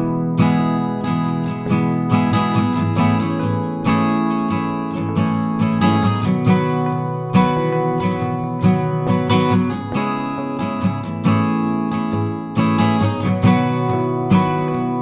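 Background music: acoustic guitar strumming steadily.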